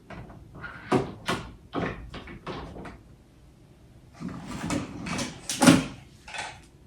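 Makeup bottles being put away: a series of knocks and clatter as foundation bottles are set into a vanity organizer, with a denser rattling stretch past the middle and the loudest knock a little before six seconds in.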